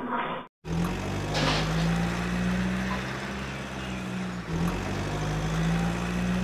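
A steady low engine hum, like a truck idling, which starts abruptly after a brief cut about half a second in. A short hiss comes soon after it starts.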